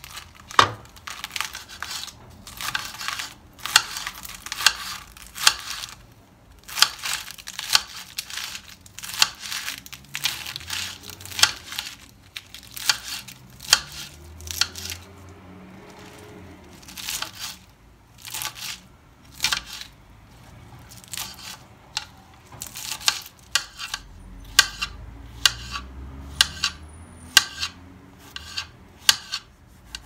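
Kitchen knife dicing cucumber on a plastic cutting board: crisp slicing cuts, each stroke tapping the board, in quick runs with short pauses between them.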